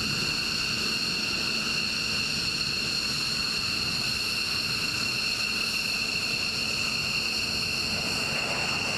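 Twin jet engines of an F-15 fighter running at takeoff power with afterburner during the takeoff run. The noise is steady, with a constant high-pitched whine over it.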